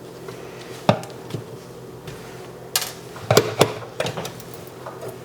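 A few sharp separate clicks and knocks of a screwdriver and a plastic outlet cover plate being handled as a kitchen receptacle is opened: one just under a second in, then a quick cluster of three or four past the middle.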